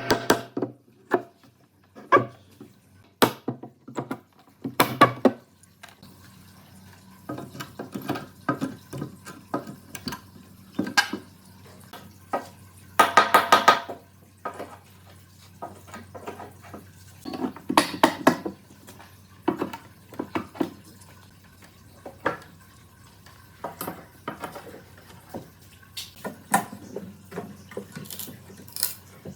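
Irregular clinks and knocks of hard objects being handled and set down, with a few short, louder clattering spells.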